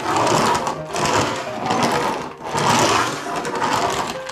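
Small toy crawler bulldozer pushed back and forth by hand over a plastic play mat, its tracks and mechanism giving a rough whirring rattle that swells and fades about once a second.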